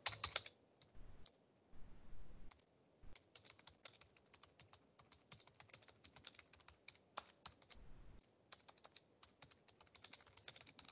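Faint typing on a computer keyboard: quick, irregular key clicks, with a few soft low bumps in between.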